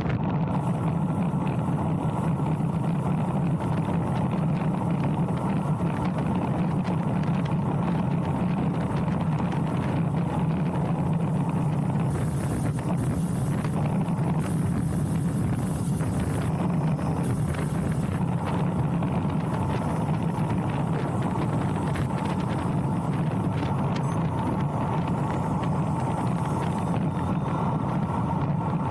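Steady rush of wind and tyre noise from a road bike descending at speed, with wind buffeting the microphone. A thin high hiss comes and goes about halfway through.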